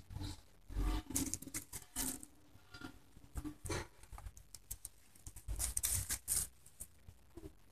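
Two Alaskan Malamute puppies play-fighting on dry grass and twigs: irregular scuffling and rustling from their paws and bodies, in short bursts, busiest about a second in and again near six seconds.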